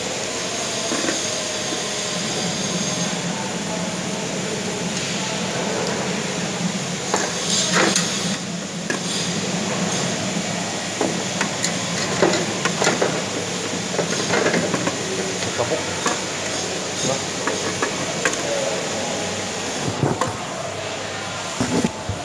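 Steady rumbling background noise with many scattered clicks and knocks from hand tools, including a screwdriver, being handled.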